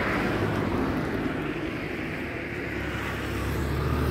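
A vehicle engine running, with noisy rumble throughout and a steady low hum growing stronger about halfway through.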